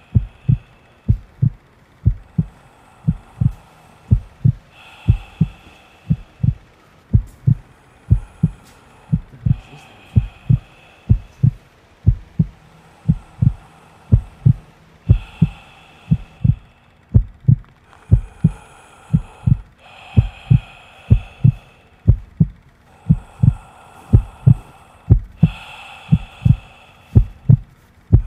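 A heartbeat-like beat in a soundtrack: low double thumps repeating steadily, about three thumps a second, with fainter higher tones coming and going over it.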